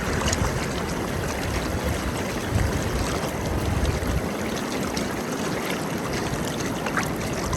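Steady rush of surf and fast-flowing water as ocean waves drive a current through a barrier-beach inlet breach. A low rumble under it eases off about two-thirds of the way through.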